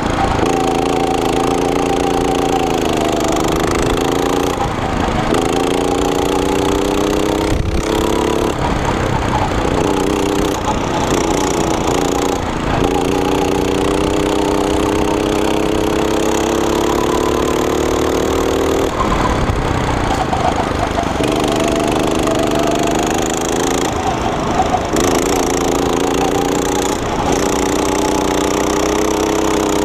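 Go-kart's small single-cylinder four-stroke engine running hard under load. Its pitch climbs steadily along the straights and drops sharply several times as the throttle comes off for corners, over a rough low rumble.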